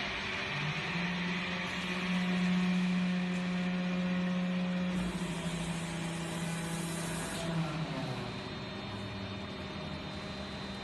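A flaskless green sand molding machine running through a molding cycle: a steady machine hum with a pitched drone that comes in about half a second in, holds, then drops to a lower pitch about eight seconds in.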